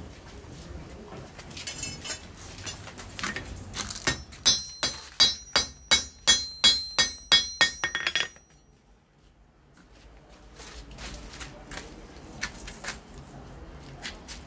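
A blacksmith's hand hammer strikes hot iron on an anvil in a steady run of about a dozen ringing metallic blows, roughly three a second, stopping abruptly about eight seconds in. A few lighter clinks come before the run.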